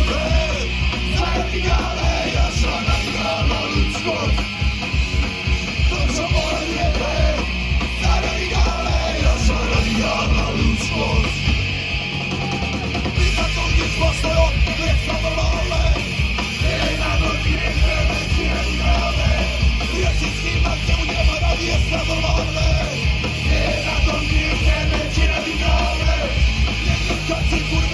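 Punk band playing live: distorted guitar, bass and fast drums with shouted vocals. The bass and drums drop out briefly about twelve seconds in, then come back.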